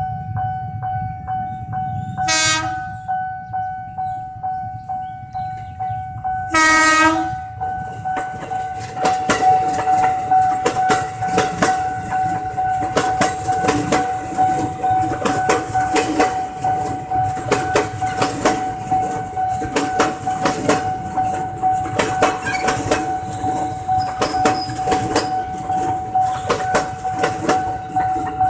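A train sounds its horn twice, a short blast then a longer one, and then passes close by with its wheels clattering rhythmically over the rail joints. A steady ringing tone with a regular tick keeps sounding underneath.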